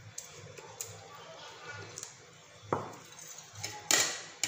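Cutlery on a ceramic plate while eating noodles: one sharp clink with a short ring a little past halfway, and a louder brief noisy burst near the end, under faint talk.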